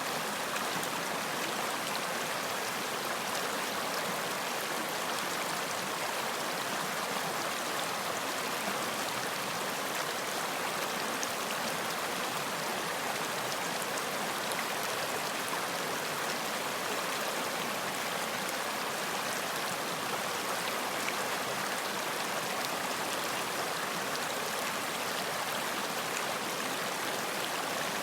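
Running water flowing steadily: an even, unbroken rush with no change in level.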